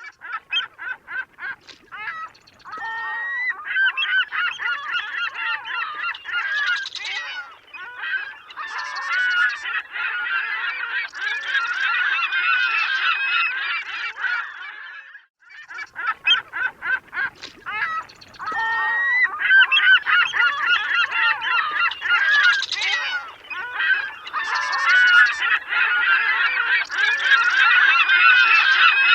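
Many gulls calling together in overlapping cries. A run of short separate calls builds into a dense chorus, and after a brief break about halfway through, the same sequence begins again.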